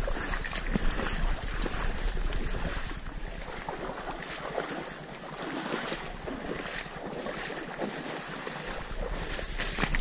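Someone wading through shallow marsh water among dry reeds, with irregular splashing and stalks brushing past, and wind rumble on the microphone that eases off in the middle and picks up again near the end.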